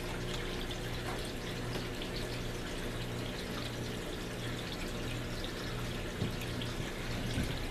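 Aquarium water trickling and splashing steadily, with small drips, over a steady low hum.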